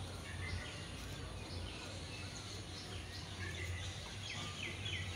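Small birds chirping outside: scattered short falling chirps, then a quick run of them at about four a second in the second half, over a low steady hum of background noise.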